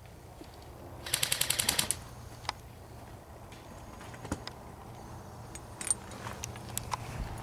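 Airsoft electric rifle firing a short full-auto burst of about a dozen rapid shots, lasting under a second about a second in. A few scattered single sharp cracks follow.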